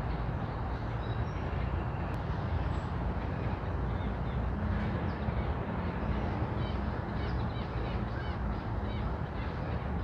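Outdoor ambience: a steady low rumble, with many short, high bird chirps from the trees starting a few seconds in.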